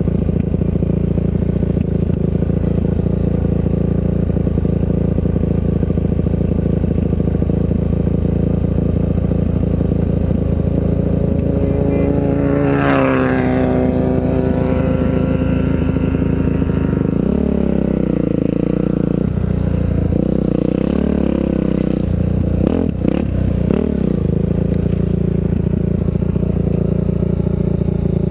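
Off-road race vehicle engine running steadily under way. Its pitch sweeps down about halfway through, and the engine note goes uneven near the end, with clattering over rough ground.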